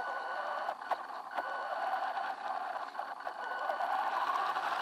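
WLtoys 10428 RC truck's electric motor and gears whining steadily as it drives over a dirt trail, picked up by its onboard camera, with tyre crunch and scattered knocks from bumps in the ground.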